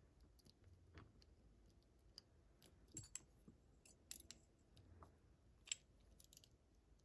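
Faint, irregular small metallic clicks and scrapes: a shim and small tools being worked into a Brinks padlock to free its stubborn core. A sharper, louder click comes late on.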